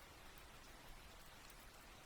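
Faint, steady rain with scattered light drop ticks, a soft sleep-sound rain track.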